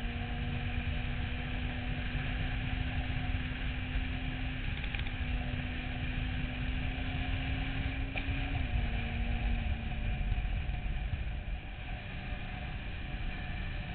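Motorcycle engine running at road speed, its note climbing slowly and then dropping about eight and a half seconds in, under heavy wind rumble on the tank-mounted microphone.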